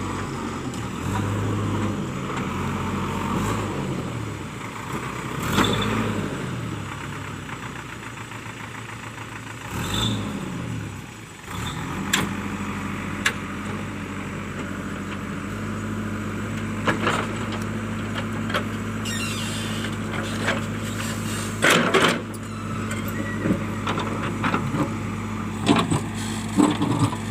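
JCB 3DX backhoe loader's diesel engine working, revving up and down a couple of times and then holding a steady pitch. Sharp knocks, from the machine's bucket or arm against rock, come every few seconds in the later part.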